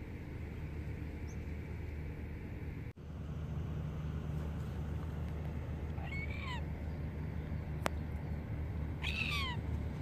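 Silver gull calling twice, about six seconds in and again near the end: each call a quick run of short notes that slide down in pitch. A steady low rumble continues underneath.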